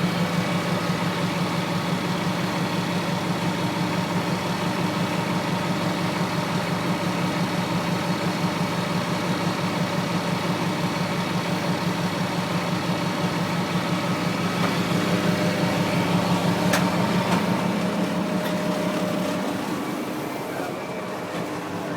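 An engine idling steadily with a low hum, which falls away near the end.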